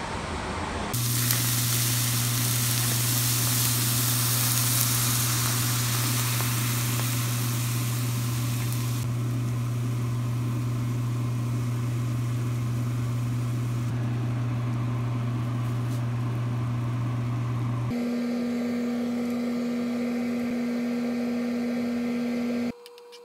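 Cream sauce with chicken and onion sizzling in a frying pan, loudest for the first several seconds and then settling to a quieter sizzle. A steady low electrical hum runs underneath, shifting to a higher pitch about 18 seconds in, and the sound drops off abruptly near the end.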